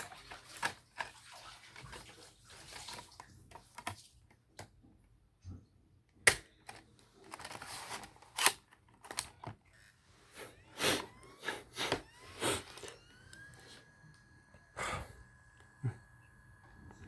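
A series of sharp clicks, taps and short rustles at irregular intervals. A faint tone rises and then holds steady from about thirteen seconds in.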